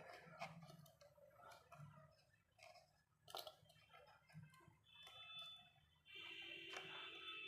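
Faint scattered clicks and light taps of small parts and tools being handled, with a steady tone coming in about six seconds in.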